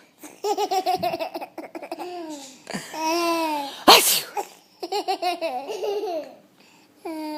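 Baby laughing in runs of short bursts, with a person's sharp sneeze about four seconds in that sets off more laughter.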